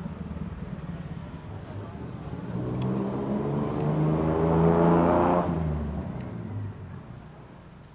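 A motor vehicle passing on the street: its engine note grows louder and rises a little in pitch, peaks about five seconds in, then fades away.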